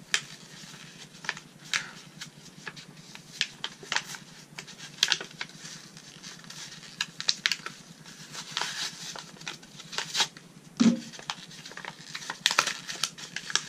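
A cardboard-backed plastic blister pack crackling and tearing as it is pried open by hand, in irregular sharp crinkles and rips. One brief low vocal sound near the end.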